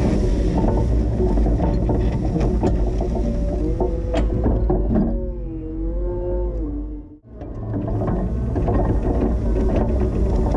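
Linde H20 EVO forklift running while plowing snow: a steady engine rumble with rattles and clanks throughout. In the middle a wavering whine rises and falls, and a little past halfway the sound drops out abruptly for a moment before returning.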